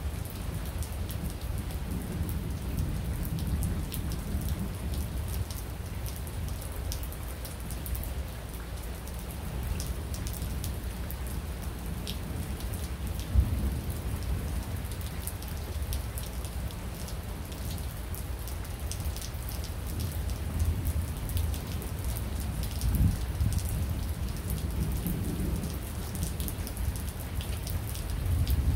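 Steady rain falling, with many close drops ticking, under low rolling thunder that swells up several times. A single sharp tap stands out about thirteen seconds in.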